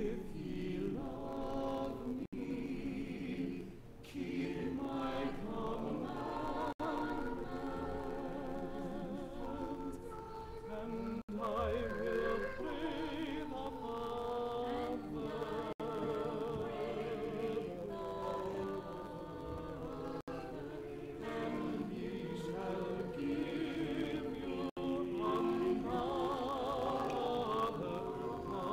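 Church choir singing in several parts, the voices wavering with vibrato, with brief breaks between phrases.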